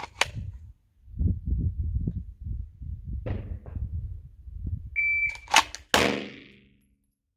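A shot timer's electronic start beep, then about a second later a handgun drawn from the holster and fired: two sharp cracks close together, the second ringing out with echo.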